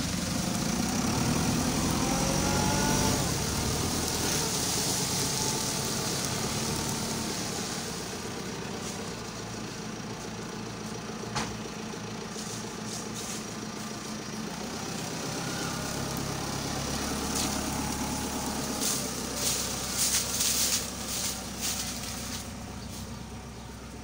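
JCB 3CX backhoe loader's diesel engine running steadily, rising in pitch twice as it revs up under load. A few sharp cracks come near the end.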